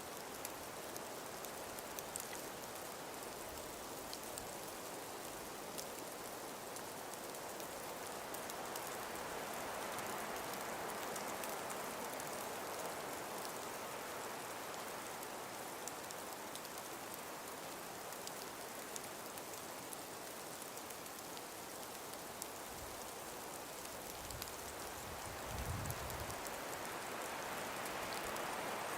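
Breeze through frosted, ice-covered forest trees: a steady hiss that swells and eases in slow gusts, with many faint sharp ticks. A brief low rumble from a gust comes near the end.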